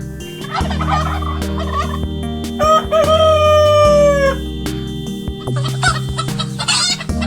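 A rooster crowing once in a long call that falls slightly in pitch near its end, with shorter chicken clucks before and after, over steady background music.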